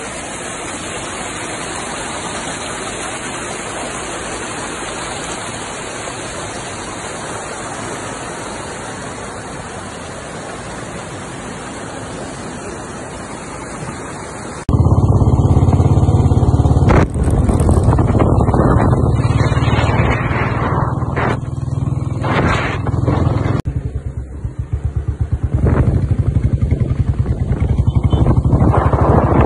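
A shallow stream rushing over rocks, a steady hiss of running water. About halfway through it cuts abruptly to a much louder low rumble with ragged wind buffeting on the microphone, the noise of riding in a moving vehicle.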